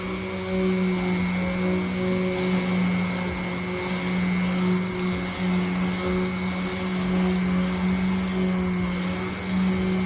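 Power sander running steadily while sanding a car's roof panel, a constant hum with a bright hiss over it that wavers slightly as pressure on the pad changes.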